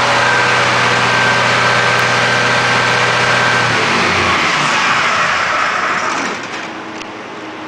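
An engine running steadily, then stopping a little under four seconds in. A steady fan-like noise is left underneath.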